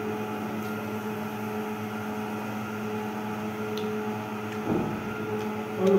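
Steady machine hum in a small room, with a few faint clicks and a dull knock about four and a half seconds in.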